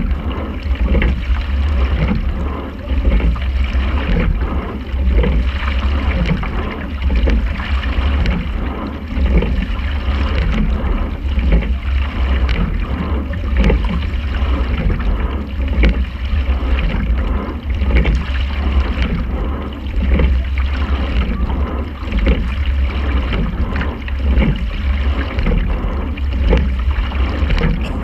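A quad sculling shell under way, heard from a GoPro mounted on the boat: water rushing along the hull over a heavy, steady low rumble, swelling in regular surges with the rowing strokes.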